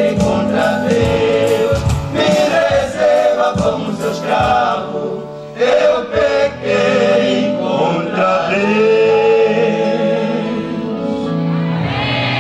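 A male gospel vocal group sings a Portuguese-language worship song, with a lead voice over the others' harmonies. From about two-thirds of the way in, they hold a long sustained chord.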